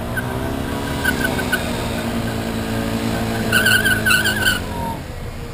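Small scooter engine running beneath the rider, its note rising and then easing back off, with rushing rumble underneath. A wavering high squeal lasting about a second comes in a little past the middle and is the loudest part.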